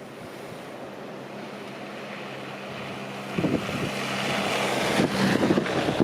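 A vehicle approaching and growing louder: a steady low engine hum with tyre hiss on a snowy road, swelling sharply about three seconds in, with wind on the microphone.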